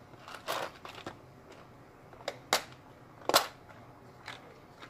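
Hard plastic clicks and clacks from a clear plastic compartment box of craft embellishments being handled and set down: a soft scrape about half a second in, then a few short sharp clacks, the loudest about three and a half seconds in.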